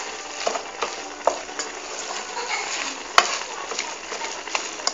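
A spoon stirring rice, shredded chicken and margarine in a metal pot over heat, the food sizzling as it fries, with scattered clicks of the spoon against the pot and one sharp knock about three seconds in.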